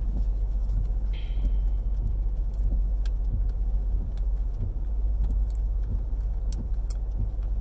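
Steady low rumble of a car heard from inside the cabin, with scattered small clicks and rustles from handling food and packaging.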